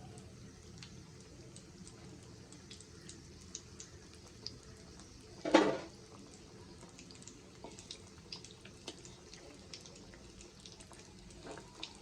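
Bread-crumb-coated koftas deep-frying in oil on low heat: a quiet sizzle with scattered small crackles, and one brief louder clatter about halfway through.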